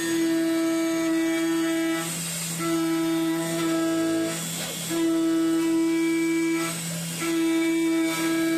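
CNC milling machine's 10 mm two-flute endmill at 10,000 rpm cutting an aluminium block: a loud, steady, high-pitched singing tone from the cutter teeth striking the metal, broken off three times by short breaks with a higher hiss as the cutter leaves and re-enters the cut on its adaptive toolpath.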